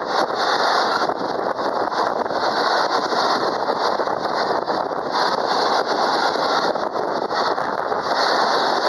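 Container freight train passing close by at speed, giving a loud, steady rushing rumble of wheels on rails.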